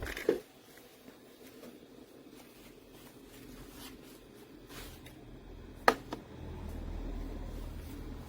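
Handling noise: knocks and rustles, with one sharp click about six seconds in, over a faint low rumble that grows louder near the end.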